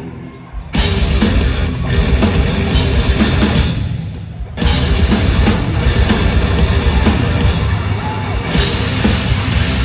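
Live hard rock band playing loud at an arena, heard through a phone microphone: distorted electric guitars, bass and drum kit, with a short break about half a second in and another near four and a half seconds before the band crashes back in.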